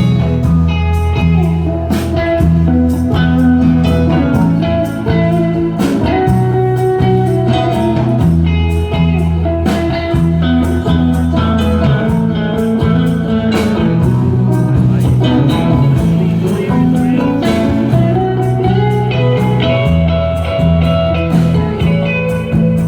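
Live band music: an instrumental stretch with guitar leading over bass and a steady beat, some notes bending in pitch.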